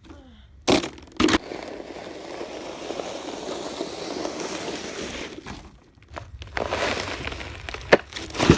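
A broken plastic trash can lid used as a sled, knocking twice, then scraping and crunching over snow on a long slide, with a second run of scraping and a couple of sharp cracks near the end.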